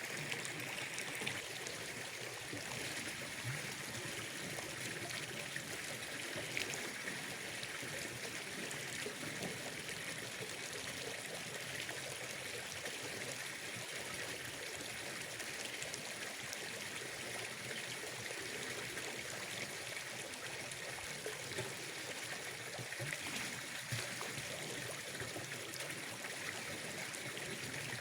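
Water trickling steadily, with a few faint ticks over it.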